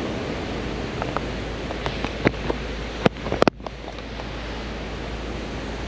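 Steady rush of water from the river's waterfall. A cluster of sharp clicks and knocks comes about two to three and a half seconds in, followed by a brief dip in the noise.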